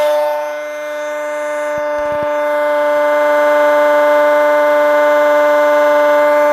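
Gerard Morin-style motor-generator rig running under load with a steady, siren-like whine at one pitch. It dips in loudness about half a second in and slowly swells back. A few faint clicks come about two seconds in.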